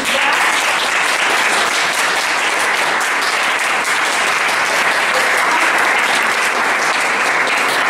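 Audience applauding: even clapping that starts at once and holds at a steady level.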